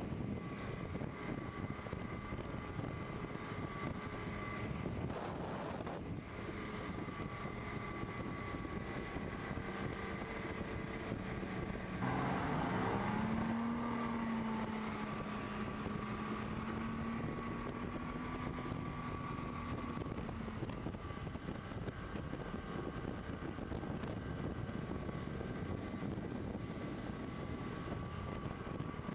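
Yamaha VMax 250 HP four-stroke outboard running steadily while towing a water skier, with wind on the microphone and the wash of the wake. About twelve seconds in the sound swells and a lower engine tone rises and holds for several seconds.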